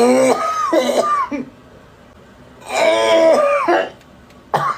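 A woman coughing and clearing her throat hoarsely in two voiced bouts, each about a second long, then one short sharp cough near the end.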